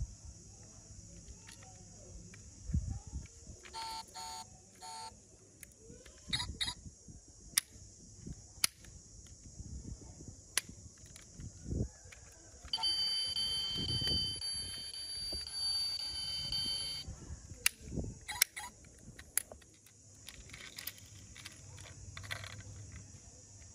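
Electronic beeps, then a steady high buzzing alarm-like tone lasting about four seconds, from a battery-powered toy car's sound unit. Small plastic clicks and knocks of toys being handled come and go throughout.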